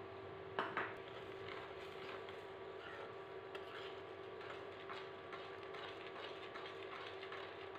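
A spoon stirring powdered sugar into cooked mango pulp in a metal pan: faint irregular scrapes and clicks against the pan, one sharper knock about half a second in. Under it a steady hum from the induction cooktop.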